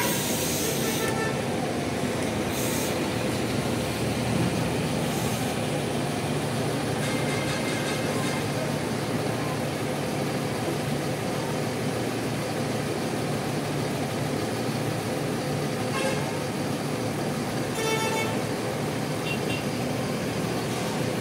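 Diesel bus engines running steadily in a terminal. Short bursts of hiss come in the first few seconds.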